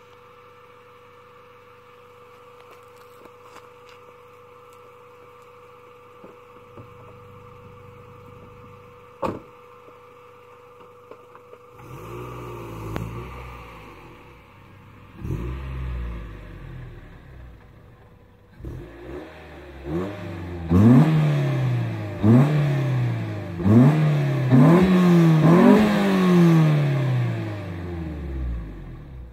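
Honda Civic EK3's 1.5-litre SOHC VTEC-E four-cylinder, breathing through a 4-1 header, decat pipe, Remus muffler and cold air intake, running quietly at first and then revved. A few rising revs come from about twelve seconds in, then a quick series of sharp rev blips about every second and a half, the last sinking slowly back down.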